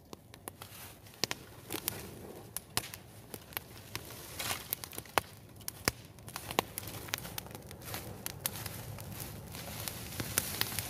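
Bonfire of dry straw and stalks crackling, with irregular sharp pops several times a second over a steady hiss.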